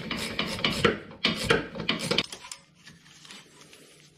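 Ratchet clicking rapidly as an 8mm Allen socket winds out a rear brake caliper slider bolt. The clicks stop a little over two seconds in, leaving faint metal handling.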